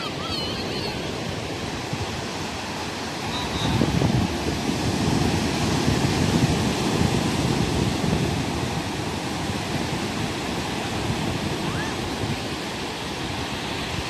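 Sea waves breaking on a beach: a steady rush of surf that swells up about four seconds in and slowly dies back down.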